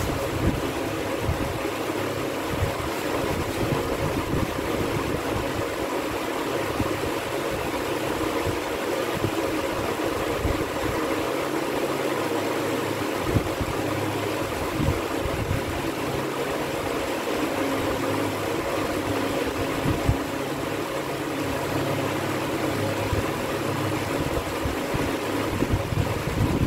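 Steady machine hum, like a motor or fan running, with a constant low drone. A few light taps of chalk on the blackboard stand out briefly.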